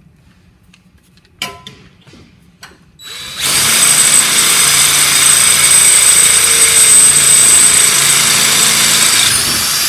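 A DeWalt cordless drill runs at speed with a 3 mm high-speed steel bit, drilling a pilot hole through a galvanised steel trunking lid into a wooden backing block. A few light handling knocks come first. About three seconds in the drill starts and runs on steadily with a high whine.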